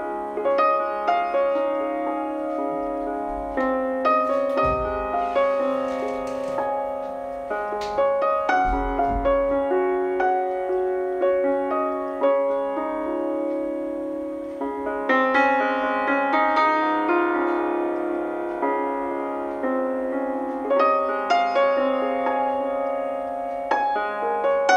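Background music: a gentle piano melody of struck notes.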